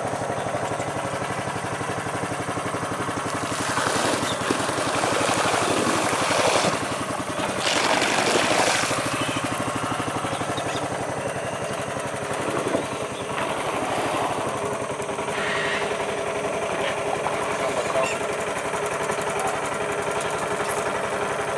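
Boat engine running with a fast, even chugging, louder for a few seconds about a third of the way in.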